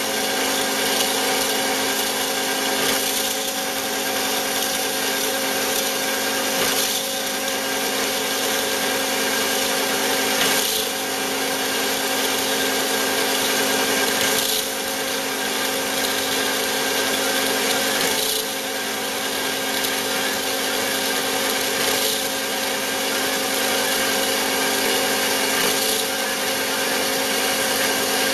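Bigstone CF450 horizontal bandsaw running, a steady motor hum under a continuous rasping saw noise that swells slightly about every four seconds.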